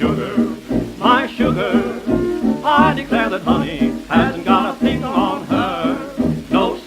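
1927 New York jazz dance band playing a fox-trot on an old Victor 78 rpm record. A wavering melody line with strong vibrato carries over a steady dance beat, and the sound thins out above the upper midrange as old 78 recordings do.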